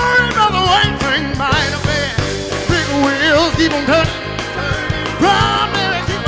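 Live band playing: drum kit, bass guitar and trumpet, with a male lead singer whose voice wavers and bends through sung runs over the beat.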